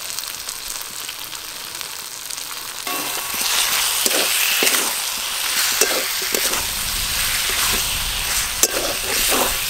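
Potatoes and pointed gourd sizzling in hot spiced oil in a wok. About three seconds in it gets louder as a spatula stirs and scrapes the vegetables against the pan in repeated strokes.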